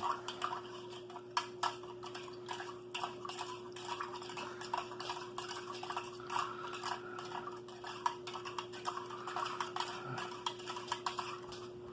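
Plastic MRE spoon stirring orange beverage powder into water, with irregular clicks and scrapes against the container as the powder, still thick on the bottom, is worked loose. A steady low hum runs underneath.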